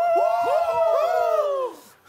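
A few voices shouting together in one long, high, held cry, with overlapping rising and falling glides. It tails off after about a second and a half.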